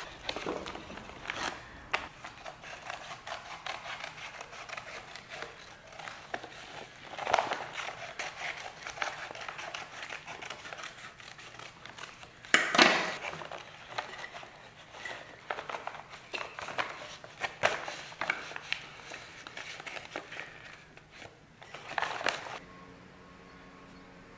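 Hand-work handling noises: irregular clicks, scrapes and rustling, with a louder clatter about halfway through and another near the end.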